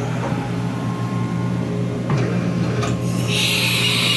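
1998 Haas VF-2 CNC vertical mill humming steadily, with two clicks. About three seconds in, a steady high-pitched whine of the spinning spindle starts up and holds.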